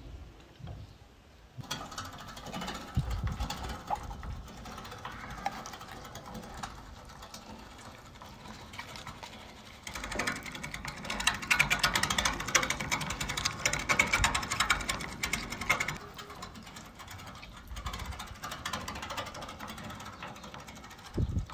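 Metal hand-cranked meat grinder turning, its auger and cutter working through chunks of raw meat with a dense, rapid grinding rattle. It starts about a second and a half in and is loudest for a stretch in the middle.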